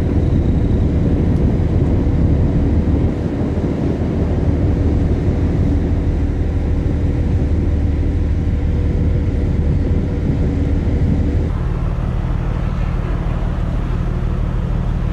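Steady low machinery hum from the ferry, with a thin steady whine over it. About eleven and a half seconds in it changes abruptly to a different, lower drone.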